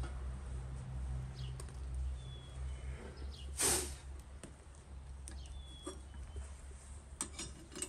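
Outdoor yard sounds: small birds chirping over a steady low rumble, with a brief loud hiss a little past halfway and a few light metal clinks near the end.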